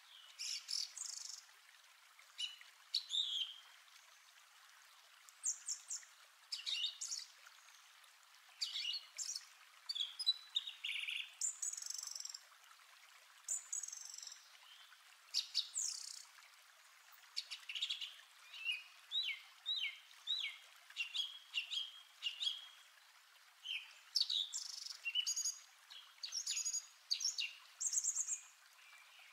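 Small birds chirping and singing: short high chirps and quick runs of notes, coming in bursts every second or two.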